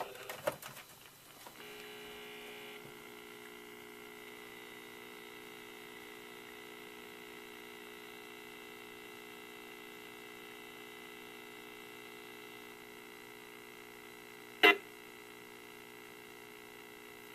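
RF meter's speaker giving a steady multi-tone hum, the audible rendering of microwave emissions picked up from a booting Raspberry Pi 3B. It starts after a few clicks about a second and a half in, and a short loud crackle cuts through it near the end.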